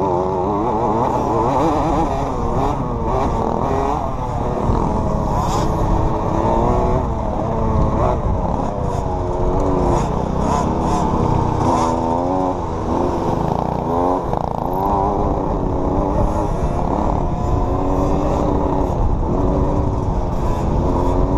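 Small youth dirt bike engine being ridden hard, its revs climbing and dropping again and again as the rider opens and closes the throttle, over a constant low rumble of wind on the bike-mounted camera.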